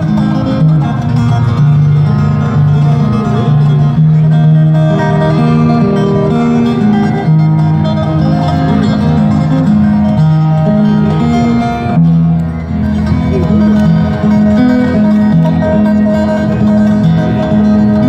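Solo acoustic guitar playing a slow melody over plucked bass notes, amplified through outdoor stage speakers.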